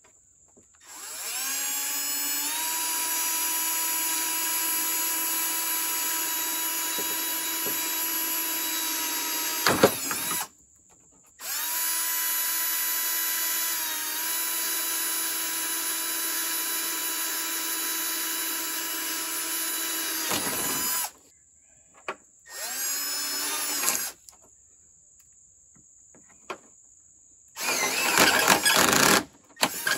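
Milwaukee cordless drill boring through a plastic ATV hood panel: the motor spins up to a steady whine and runs for about ten seconds, stops, then runs again for about nine seconds. A short burst follows, and near the end come louder, rougher bursts as the bit cuts the plastic.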